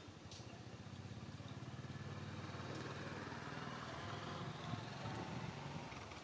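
A small motorcycle engine running, its low hum growing louder over the first couple of seconds, holding steady, then dropping away near the end.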